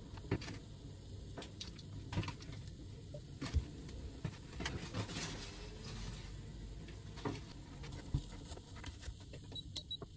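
Scattered light clicks and taps of kitchen work: a knife buttering halved English muffins on a plate, and muffins being turned over in a nonstick frying pan.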